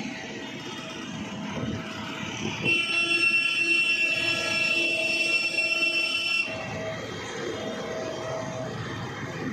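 Road traffic noise. About three seconds in, a loud, steady, high-pitched squeal of several tones comes in for about four seconds and cuts off abruptly.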